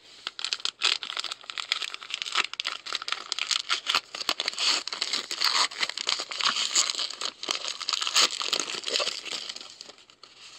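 Wrapper of a trading card pack being torn open and crinkled by hand, a dense crackling of thin packaging that eases off near the end.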